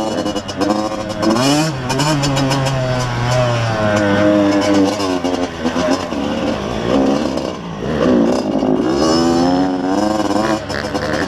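Yamaha YZ85's two-stroke single-cylinder engine being ridden hard on a dirt track, its pitch climbing and falling over and over as the throttle is opened and rolled off through the gears.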